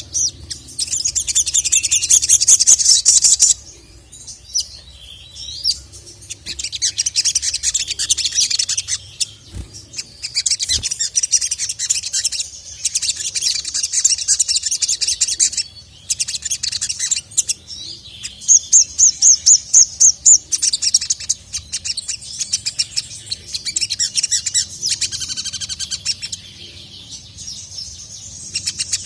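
Sogon (sogok ontong, the ruby-cheeked sunbird) singing: repeated phrases of rapid, high-pitched chattering trills, each lasting one to four seconds, with short pauses between them.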